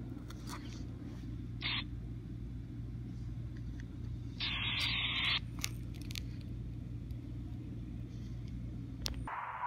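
Dispatch radio channel between transmissions: a steady low hum with two short bursts of radio static, a brief one under two seconds in and one about a second long near the middle, plus a few faint clicks. The hum cuts off near the end.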